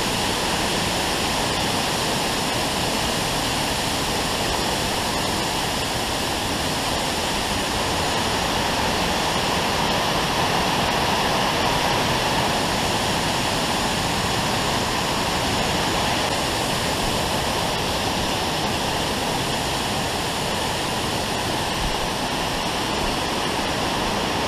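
Waterfall: falling water rushing in a steady, even noise that does not change.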